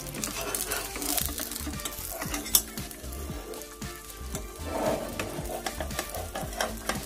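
Egg omelette sizzling in oil in a nonstick pan while a metal spatula scrapes and taps around its edges, loosening it before it is turned. There are many small scrapes and clicks, with one sharper tap about two and a half seconds in.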